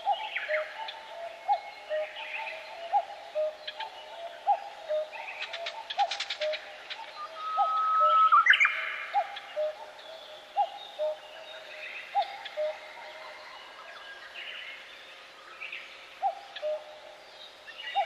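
Several birds singing and chirping, over one low, short call repeated steadily every second or so. The loudest moment is a brief louder flurry of song about halfway through.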